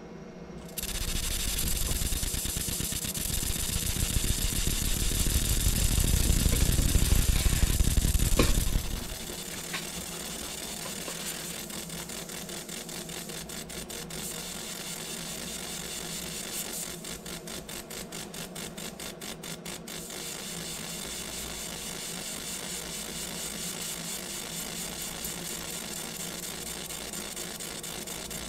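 Laser engraver etching a logo into a copper coin: a steady hiss and hum with faint rapid ticking. A louder low rumble starts suddenly about a second in, swells, and drops away about nine seconds in.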